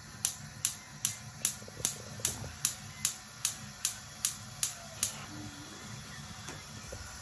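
Gas stove's electric spark igniter clicking repeatedly, about two and a half clicks a second, as the burner is lit. The clicking stops about five seconds in.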